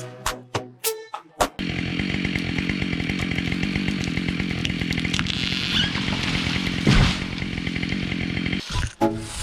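A two-stroke chainsaw running steadily while cutting tree wood, with a sudden loud impact about seven seconds in. Music plays briefly at the start and returns just before the end.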